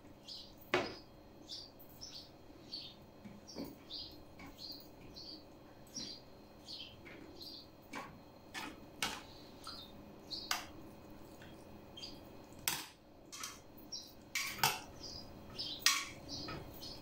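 Metal spoons and trays clinking now and then. Behind them, a small bird chirps repeatedly, short high chirps a little under twice a second.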